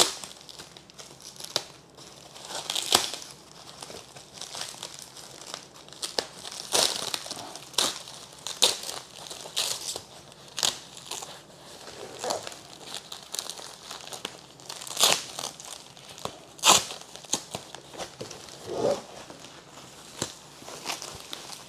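Foam packing wrap being pulled open and handled: irregular crinkling and rustling, with sharper crackles every few seconds.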